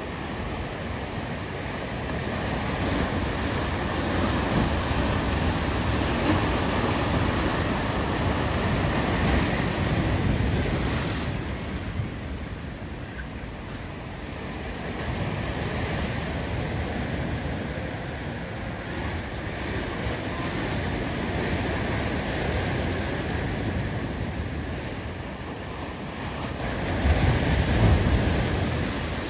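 Ocean surf breaking and washing over a rocky shore. The rush of water swells and ebbs every few seconds, with the loudest crash near the end.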